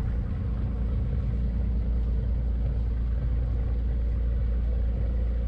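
A boat engine running steadily at cruising speed, a constant low drone heard on board.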